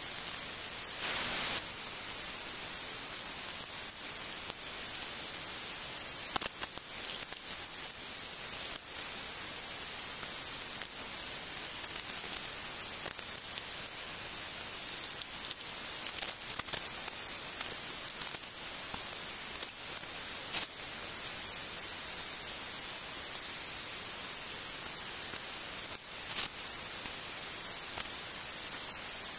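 Steady hiss with scattered light clicks and knocks of hands working on the tank and wiring, and one short burst of noise about a second in.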